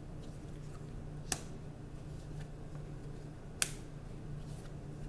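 Tarot cards being laid down from the deck onto a wooden table: two sharp snaps about two seconds apart, the second the louder, over a faint steady low hum.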